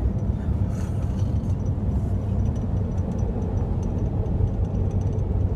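Steady low rumble of road and engine noise inside the cabin of a Nissan Patrol Y62 driving at highway speed.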